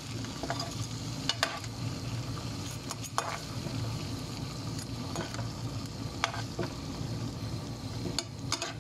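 Fish and sliced vegetables sizzling in a frying pan as a slotted metal spatula stirs and pushes them around, with a few sharp clicks of the metal spatula striking the pan.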